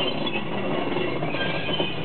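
Diesel railcar KiHa 58003 approaching at low speed, its engine running, with high-pitched wheel squeal at the start and again about halfway through.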